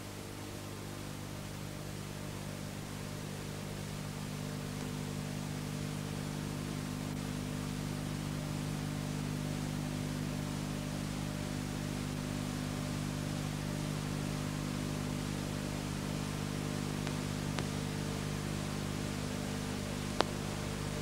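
Steady hiss and low hum from the blank gap in an old analogue video recording, swelling slowly over the first few seconds. A faint click comes about three-quarters of the way through, and a sharper click near the end.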